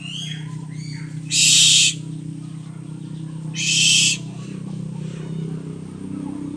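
Owl giving two harsh, hissing screeches about two seconds apart, each lasting about half a second, over a steady low hum.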